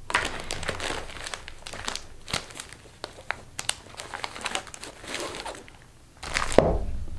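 Packaging being handled: a cotton drawstring dust bag is lifted out of a paperboard box and moved aside, crinkling and rustling with many small clicks. A low thump comes near the end.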